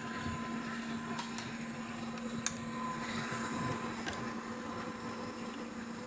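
Steady mechanical whir with a faint hum from electronics repair bench equipment, broken by a few light clicks and one sharp click about two and a half seconds in.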